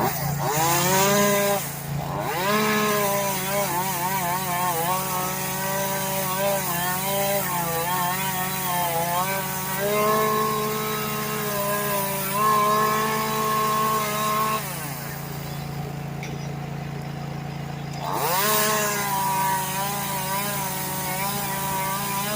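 Small two-stroke Echo chainsaw with a 10-inch bar, revving up and cutting wood, its pitch wavering under load. It drops back to idle about two-thirds of the way through, then revs up again near the end.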